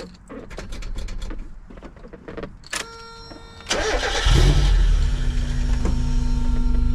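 Car engine being started: a click, a brief crank of the starter, then the engine catches about four seconds in and settles into a steady idle.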